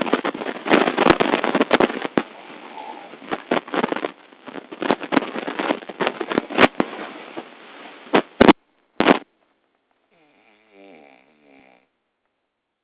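Loud snoring with a dense, irregular crackling rattle. It ends with two loud separate snores about eight and a half and nine seconds in, after which it goes almost quiet.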